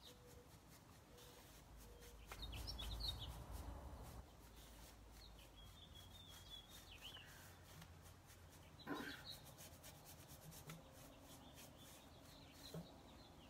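Faint brush strokes rubbing clay paint into a painted wooden dresser, with a few faint bird chirps.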